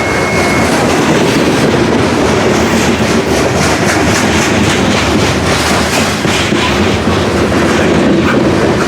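Freight cars of a CSX grain train rolling steadily past at close range: a continuous rumble, with wheels clicking over the rail joints.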